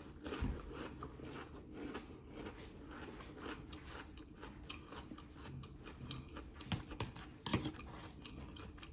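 Close-miked chewing and biting of a sausage hot dog topped with grinder salad: irregular wet crunching and mouth clicks throughout, with two louder crunches about three quarters of the way through.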